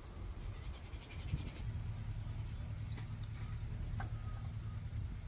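Farmyard ambience: faint bird chirps over a low steady hum that comes in about two seconds in, with a couple of light clicks.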